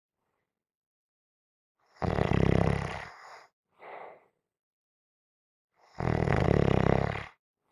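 A person gently snoring: two rattling snores about four seconds apart, each lasting about a second and a half, with a short softer breath just after the first.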